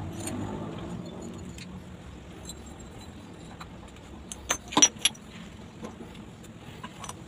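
Broken ceramic tile pieces clinking and tapping as they are picked up and set into wet cement, with a quick cluster of sharper clinks a little before the five-second mark. A low steady rumble runs underneath.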